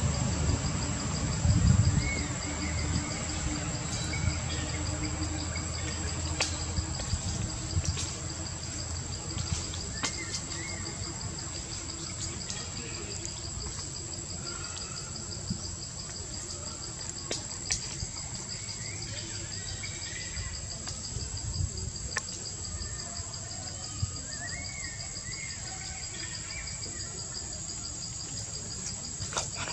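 Insects calling steadily in the trees, one a continuous high whine and another a fast pulsing trill, with scattered short bird chirps over a low rumble.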